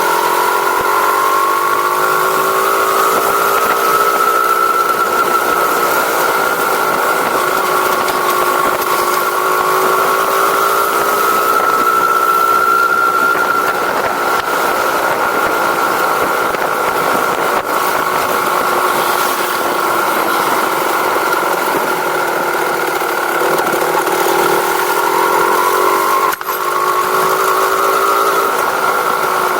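A vehicle engine runs steadily, its pitch rising and falling slowly, with a brief dip about 26 seconds in.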